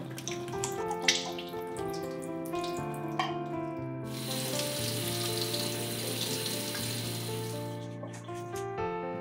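Canned beans tipped into a stainless steel mesh strainer with a few soft clatters, then a kitchen tap running onto them in the strainer for about four seconds from about four seconds in, rinsing them. Background music throughout.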